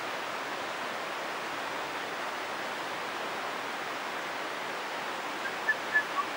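Steady rushing of a nearby mountain river or stream. A few short, high chirps come in near the end.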